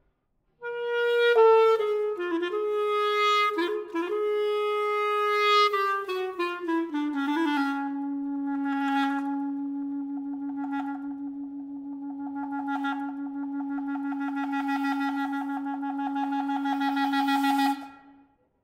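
Solo clarinet playing a phrase that starts shortly after the beginning and steps down through several notes to a long held low note. The held note dips in loudness, then swells with a rapid flutter in its tone and stops abruptly near the end.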